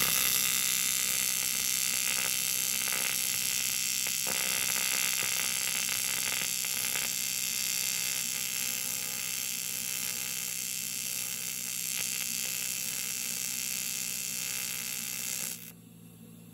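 AC TIG welding arc from an Eastwood TIG 200 at about 140 amps, melting aluminum bronze filler rod into cast iron: a steady buzz with a hiss that cuts off suddenly about a second before the end as the pedal is released.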